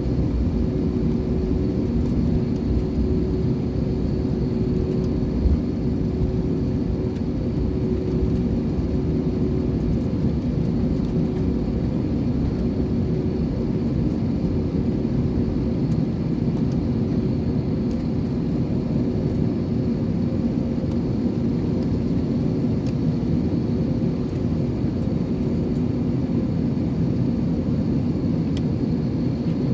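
Jet airliner cabin noise: engines and airflow making a steady drone with a few constant hum tones. It stays even throughout, with no rise or fall.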